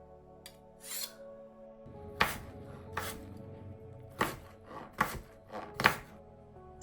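Eight or so sharp chopping strikes at an uneven pace, the loudest about two seconds in and near the end, over soft sustained background music.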